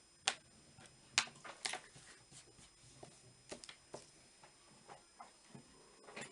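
Irregular light clicks and taps of small objects being handled and set down, a dozen or so at uneven intervals, the sharpest about a third of a second and a second in.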